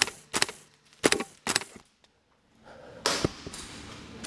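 Airsoft KWA LM4 gas blowback rifle firing single shots: four or five sharp cracks in the first two seconds, then a noisier burst about three seconds in.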